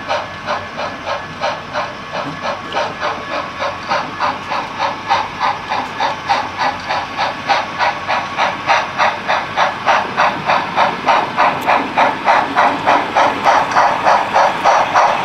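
HO scale model steam locomotive's onboard sound playing steady, rhythmic steam chuffing as it runs, the hissing exhaust beats coming a few per second. The chuffing grows steadily louder as the locomotive approaches and passes close by.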